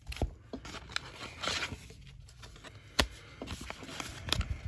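Cellophane wrapper crinkling and tearing as a stack of trading cards is unwrapped, with scattered light clicks and taps of handling; one sharper click about three seconds in.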